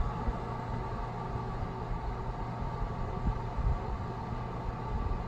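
Keurig K-Classic brewer heating its first tank of freshly added water: a steady hiss over a low hum with irregular low thumps from the internal heating element, loud and intense near the peak of the heating cycle.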